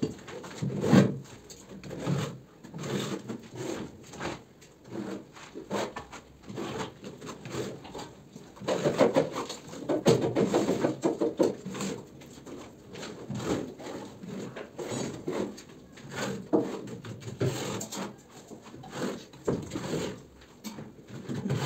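Hand tool scraping and rubbing over a gypsum plaster ceiling in quick, irregular strokes, thickest around the middle.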